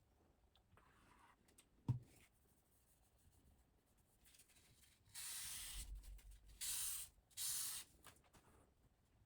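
Three hissing strokes of a knife blade drawn along a surface, the first the longest, with a single sharp knock about two seconds in.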